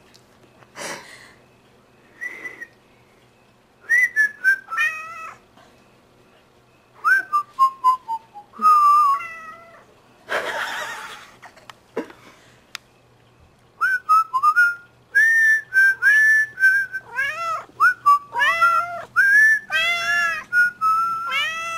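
A person whistling short phrases of falling and held notes while a dilute tortoiseshell American Shorthair cat meows back. The cat's meows come in a quick run of rising-and-falling calls over the last several seconds.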